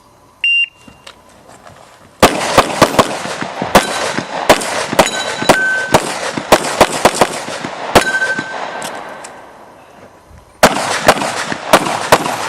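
A shot timer beeps once, short and high. Then an open-division Tanfoglio competition pistol fires fast strings of shots, and some hits ring off steel targets with a clang. Firing stops for about a second near the end, then starts again.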